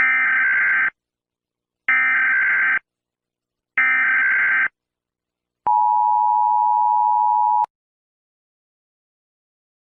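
Emergency Alert System SAME header: three identical bursts of warbling data tones, each just under a second long. A steady dual-tone EAS attention signal follows for about two seconds.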